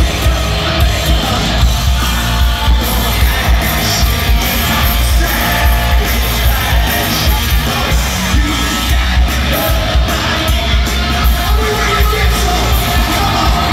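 A hard rock band playing live with a male lead singer, loud with heavy bass and a beat pulsing about twice a second.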